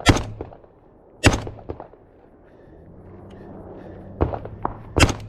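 Three rifle shots from the rifle carrying the camera: one right at the start, one about a second later, and one near the end, with a few fainter knocks shortly before the last.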